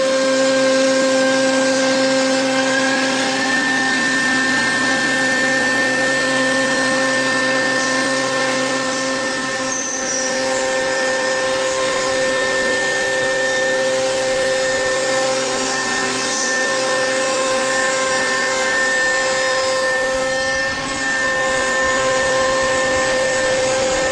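Spindle of a Fulltek PA-3713 CNC machining center running at speed and routing solid wood: a steady whine of several held tones over the rushing noise of the cut, its pitch stepping up a few seconds in.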